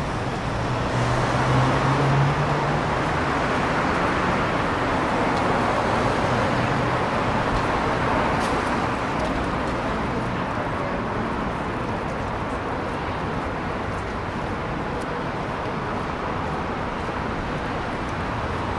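City street ambience: a steady wash of traffic noise, with a vehicle's low engine hum loudest in the first few seconds, and faint voices of passers-by.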